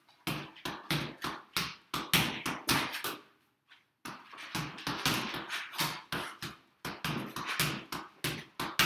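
A soccer ball bounced back and forth between a person's head and a wall in consecutive headers: a quick run of thuds, several a second. There is a short break of under a second a little past the middle before the headers pick up again.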